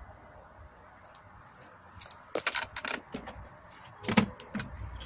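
Adhesive tape being handled and cut with scissors: a short run of crackling, scratchy tearing sounds about two seconds in, then one sharp click about four seconds in.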